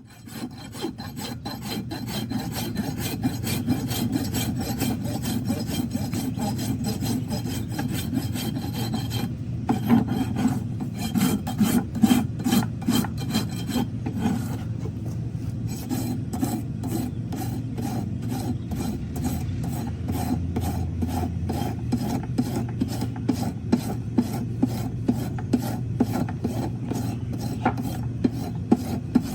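Farrier's rasp filing a horse's hoof in quick, even back-and-forth strokes.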